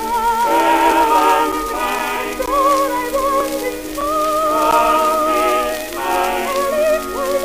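1918 acoustic-era Victor 78 rpm record of a sentimental ballad: a soprano singing with wide vibrato, with other voices and accompaniment under her, in a thin sound with no bass. A steady hiss and crackle of record surface noise runs under the music.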